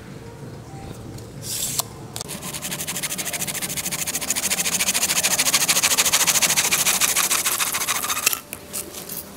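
Fast, even scraping strokes, like sanding or filing a hard surface by hand, starting about two seconds in after a brief hiss, growing louder and stopping abruptly near the end.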